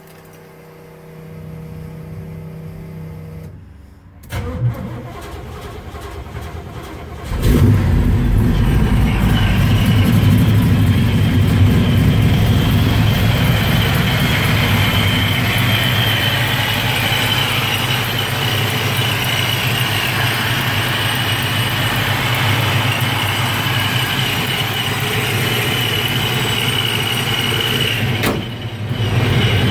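Supercharged 1972 Chevrolet Nova engine being started: the starter cranks for about three seconds and the engine catches suddenly about seven seconds in. It then runs steadily, with a steady high whine over the running engine.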